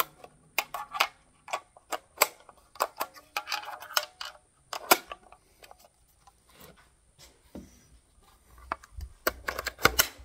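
.308 Winchester cartridges being thumbed one at a time into a PTR 91 rifle magazine: a run of sharp clicks and metallic taps. Near the end a quick cluster of clicks comes as the magazine is brought to the rifle.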